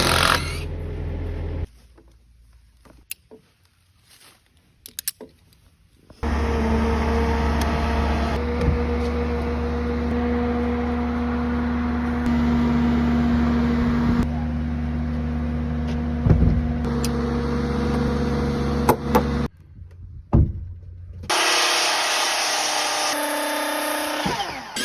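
An engine running steadily, with a few sharp knocks, in several abruptly cut stretches; one quieter stretch near the start holds only scattered knocks.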